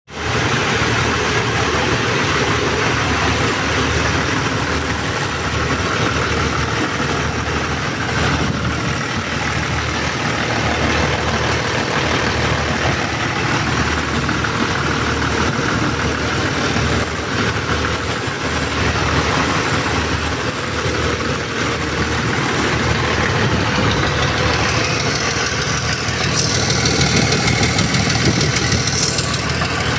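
Freshly rebuilt diesel engine running steadily at idle on an engine test stand. A higher hiss joins briefly near the end.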